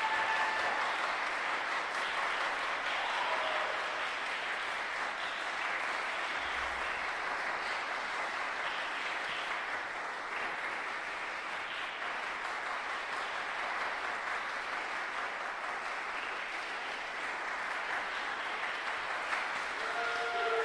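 Audience applauding steadily; the applause eases a little in the middle and swells again near the end.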